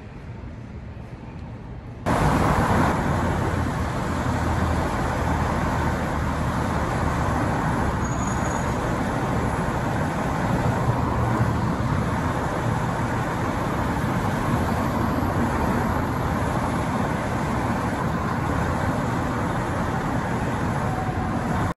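Several parked fire trucks idling together in a steady rumble with a low engine hum. It starts suddenly about two seconds in, after a quieter stretch of vehicle noise.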